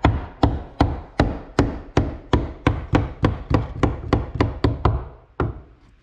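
Rapid hammer blows, about three a second, striking a wooden 2x4 to drive it into a gap above a beam. There is a short pause near the end, broken by a single blow.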